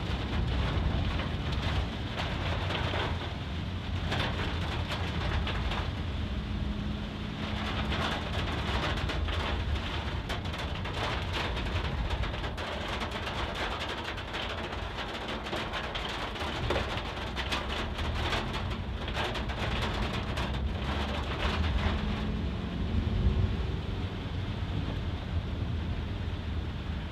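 Heavy rain pattering densely on a moving car, many fine drop ticks over the low rumble of the engine and tyres on a wet road.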